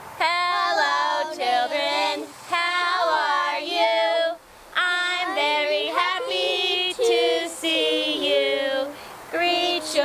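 Women and children singing a hello song together, unaccompanied, in short phrases with held notes and brief pauses between lines.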